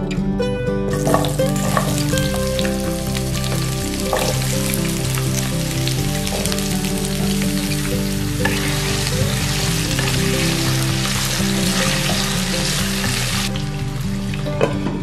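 Hot oil sizzling in a frying pan as whole spices and cubed potatoes fry in it. The sizzle starts about a second in, grows louder past the middle and cuts off shortly before the end. Soft music plays underneath.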